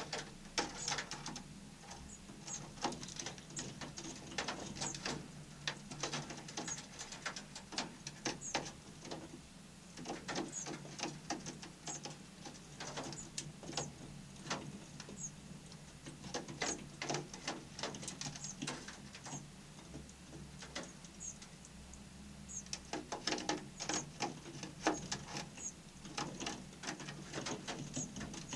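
Small birds giving short high chirps over a busy, irregular patter of clicks and taps, with a steady low hum underneath.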